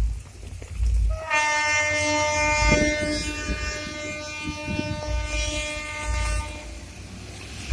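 Diesel locomotive horn sounding one long blast of about five seconds, several steady tones together, starting about a second in. Low thumps, such as wind on the microphone, run underneath.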